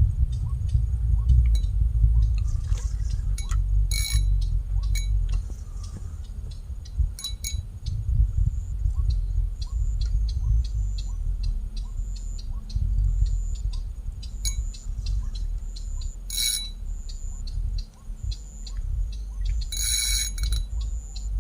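Steady low rumble with many small scattered clicks, and a few short ringing metallic clinks, four in all.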